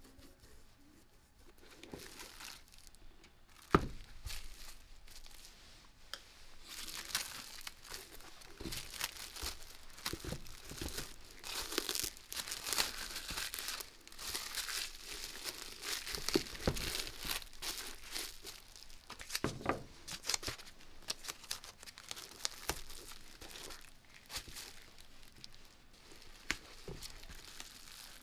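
Plastic wrap crinkling and tearing as it is handled, with a single sharp knock about four seconds in.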